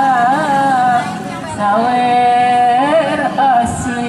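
A solo voice chanting a Sundanese sawer wedding song (kidung pangantén), drawing out long held notes with wavering ornaments. It breaks off for a breath about a second in and takes up a new long note about half a second later.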